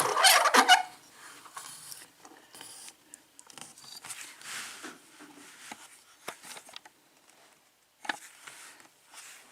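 Metal padlock and lock-picking tools being handled: a burst of clicks and rattles in the first second, then faint scrapes and light clicks.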